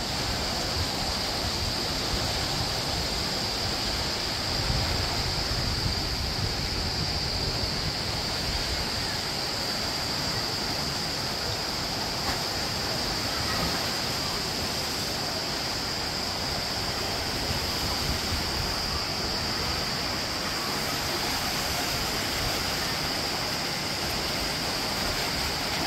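Running water rushing steadily, with a constant high hiss and no breaks.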